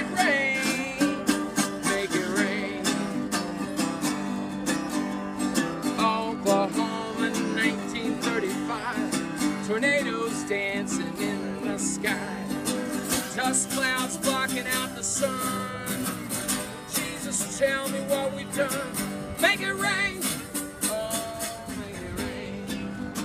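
Acoustic guitar played and strummed through a song's opening, with voices over it.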